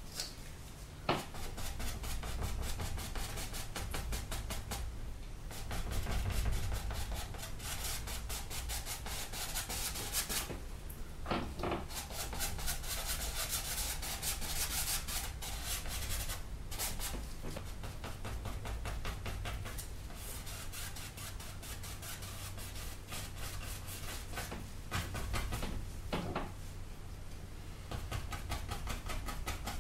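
Paintbrush scrubbing oil paint onto a stretched canvas: a rubbing sound of rapid, repeated brush strokes, broken by a few brief pauses.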